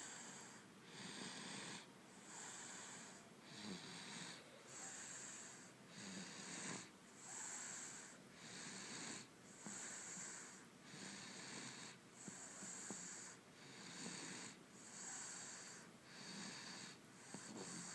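Sleeping baby snoring softly, with quick, even breaths at about one a second.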